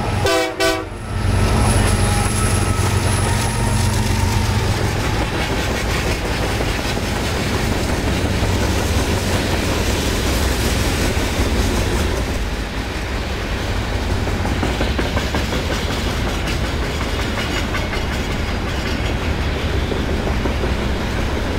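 BNSF diesel-electric freight train passing: the locomotives' engines hum steadily for the first few seconds, then the freight cars roll by with a continuous clatter of wheels on rail.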